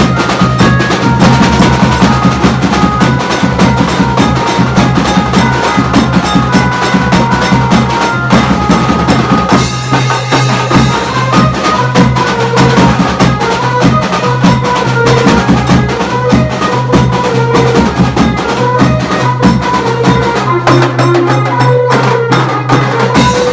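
Loud wedding dance music: fast, dense drumming under a melody line.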